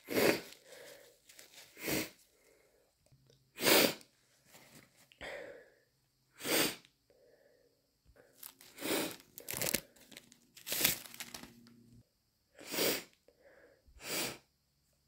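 A person sniffling over and over with a wet, snotty nose, about ten short sniffs with short pauses between them. She puts the irritated nose down to hayfever.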